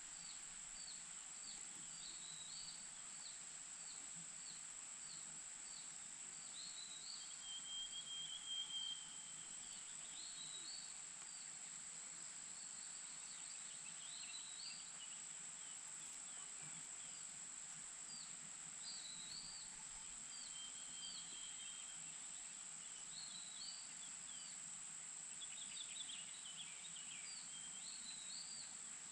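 Small birds giving repeated short, high chirps in loose runs, with a couple of brief held whistles, over a steady high-pitched insect drone.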